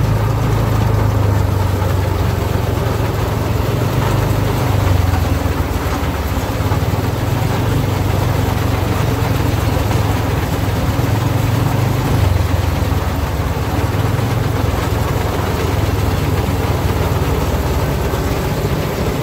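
Tractor engine running steadily with a low drone while it works a Krone KR 125 round baler.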